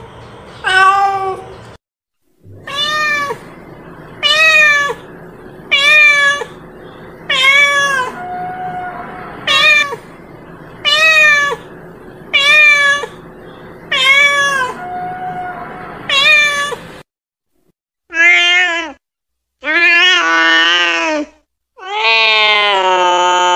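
A domestic cat meowing over and over: about ten short meows about a second and a half apart, each rising then falling in pitch, then after a short pause three longer, drawn-out meows, the last held for several seconds.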